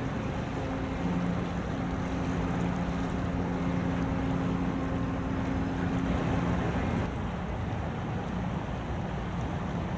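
Steady low engine drone over wind and water noise. The drone stops about seven seconds in, leaving the wind and water noise.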